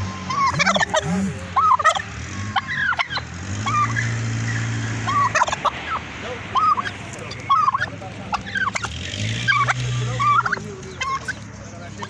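A domestic turkey tom gobbling over and over in quick, rattling bursts, about eight of them. Twice, around four and nine seconds in, a low steady hum sounds under the calls.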